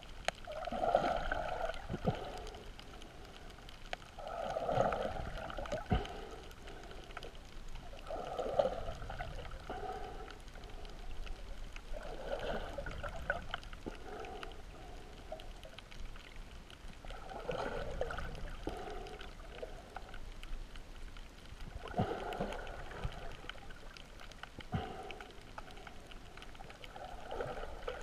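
Muffled snorkel breathing heard underwater: a rush of breath about every four to five seconds, each followed by a fainter one, with a few sharp clicks in between.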